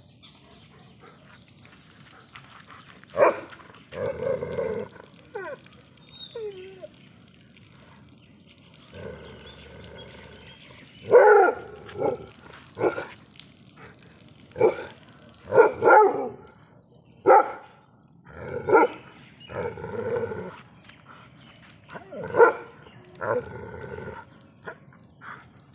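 Leashed dog barking repeatedly in short, sharp clusters, with a few longer, drawn-out calls in between, at cows in front of it.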